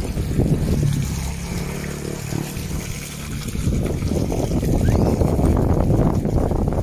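Spring water pouring from a bamboo pipe spout into plastic water containers, with low wind rumble on the microphone. The noise dips a little in the middle and comes back louder.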